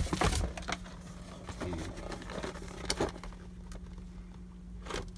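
Plastic blister packaging and a cardboard box being handled as a carded action figure is lifted out: light rustling and a few scattered clicks, loudest in the first half second.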